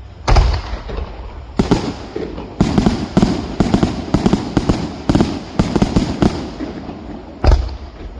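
Fireworks bursting in a rapid series of sharp bangs, about a dozen close together in the middle, then one last bang near the end.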